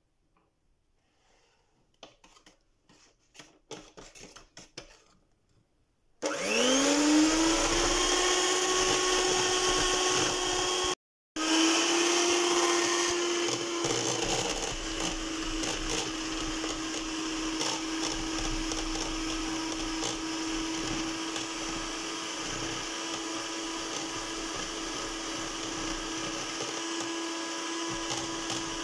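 SilverCrest electric hand mixer starting with a rising whine about six seconds in, then running steadily as its beaters whip cold whipping cream with cocoa powder and icing sugar. Before it starts there are a few light knocks and clicks, and the motor sound breaks off for a moment partway through.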